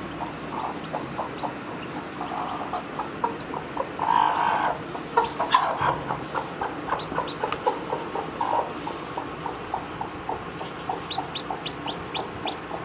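Chickens clucking in a run of short repeated calls, with louder calls about four to six seconds in and some high thin peeps near the end.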